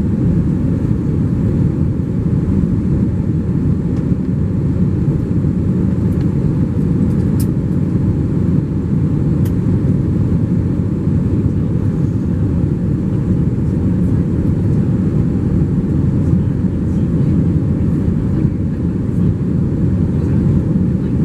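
Steady cabin noise inside an Airbus A321 shortly after take-off: the low, even rumble of its jet engines and the airflow over the fuselage.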